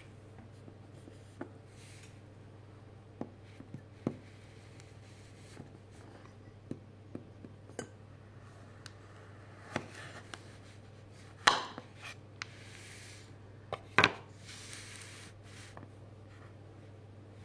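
A knife cutting into a homemade chocolate-coated keto Twix bar, cracking the chocolate shell and the crumbly biscuit inside: scattered small clicks and taps, with two louder sharp cracks about eleven and fourteen seconds in.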